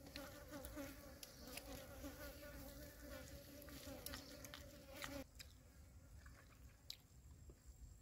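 A flying insect buzzing in a steady, wavering hum that cuts off suddenly about five seconds in, with a few faint clicks.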